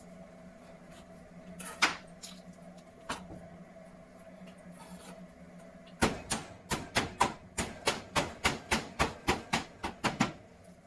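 Kitchen knife chopping through a whole raw chicken on a wooden cutting board: a couple of single knocks, then about six seconds in a fast run of about sixteen strokes, roughly four a second, lasting about four seconds.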